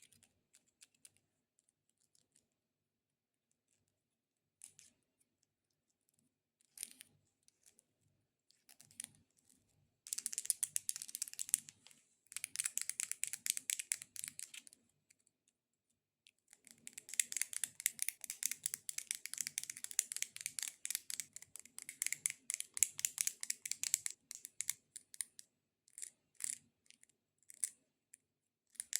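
Very long (XXL) false fingernails tapping and clicking against each other. Scattered clicks at first, then about ten seconds in a run of rapid clicking that stops briefly and starts again for several more seconds, before thinning out to scattered clicks.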